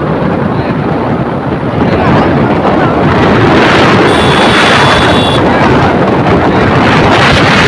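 Wind buffeting the phone's microphone while riding on a moving open vehicle: a loud, even rush of noise that grows louder about two seconds in.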